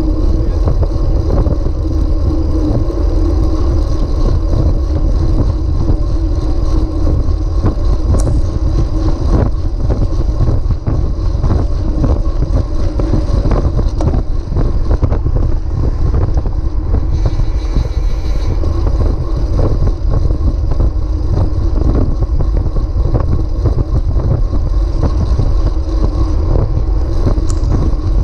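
Wind buffeting a road bike's camera microphone, a steady loud low rumble, over the tyre and road noise of the bike rolling along the pavement, with scattered small ticks from road bumps.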